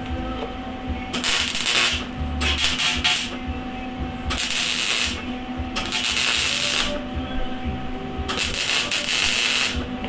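MIG welder laying a series of short welds on rusty sheet steel: five bursts of arc crackle and hiss, each about a second long with short pauses between. The voltage is turned down yet still burns through the rust.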